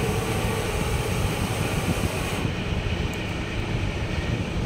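Steady low rumble and hum of running workshop machinery, with a faint click or two about three seconds in as panel keys and knobs are worked.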